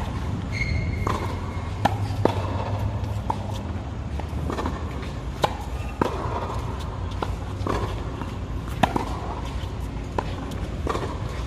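Tennis balls struck by rackets and bouncing on a hard court during a rally: sharp single pops at uneven intervals, roughly one or two a second.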